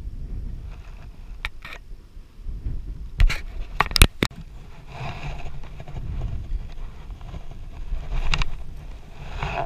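A few sharp clicks and knocks, the loudest about four seconds in, and stretches of scraping and rustling, over a steady low rumble.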